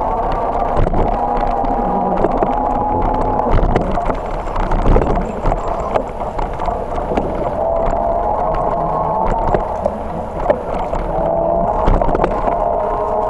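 Bicycle rolling along a paved path: a steady whine that drifts slowly up and down in pitch, with frequent small knocks and rattles from bumps in the path.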